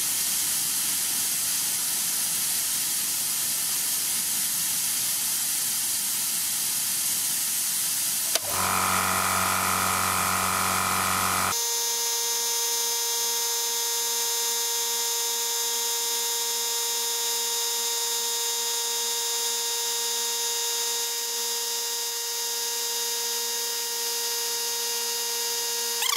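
Paint spray gun blowing a steady hiss of compressed air supplied by the oil-free compressor. About eight seconds in, the compressor's electric motor starts, adding a steady hum. A few seconds later the running sound changes abruptly to a steady higher-pitched whine over the hiss.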